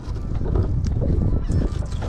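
Fillet knife cutting through a whole grunt's scales and flesh on a plastic cutting board, short scraping ticks, over a steady low rumble.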